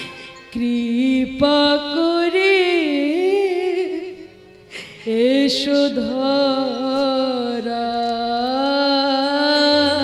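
Bengali lila kirtan singing: a woman's voice holds long, wavering melismatic notes over the music, with a short break about four seconds in before the next phrase.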